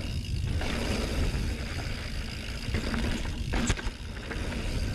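Mountain bike rolling fast down a packed-dirt trail: wind rushing over the camera microphone and tyre noise on the dirt, with one sharp clack from the bike about three and a half seconds in.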